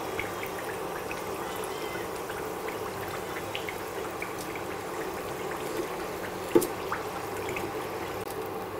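Chakali deep-frying in hot oil in a steel pan: a steady sizzle with scattered small crackles. A single sharp knock, a metal spoon against the pan, about six and a half seconds in.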